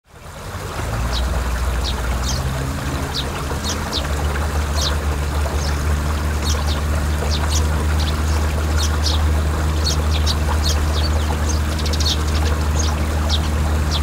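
Water pouring and trickling in a flooded rice paddy, with many short high bird chirps. Underneath runs a steady, loud low engine hum. The sound fades in over the first second.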